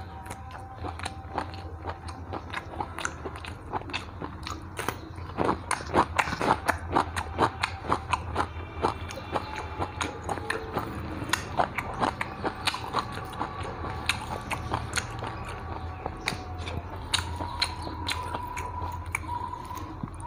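Close-miked chewing and biting as a man eats rice and curry by hand and bites into a raw green chilli: a dense, irregular run of wet clicks, smacks and crunches, busiest a few seconds in.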